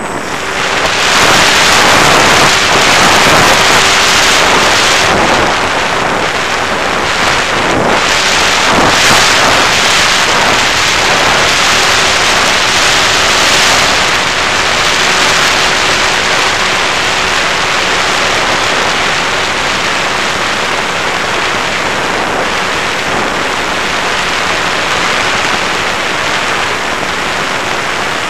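Airflow rushing over the microphone of an action camera riding on an FPV Raptor RC plane in flight: a loud, steady hiss that swells about a second in and eases slightly past the halfway point. A faint steady hum from the plane's electric motor and propeller sits under it for the first two-thirds.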